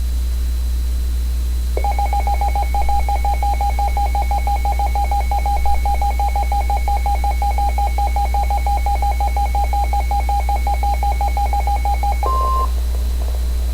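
Electronic tones on a NOAA Weather Radio broadcast channel over a loud steady hum. A rapidly pulsing beep starts a couple of seconds in and runs for about ten seconds, then gives way to a brief, slightly higher steady beep near the end.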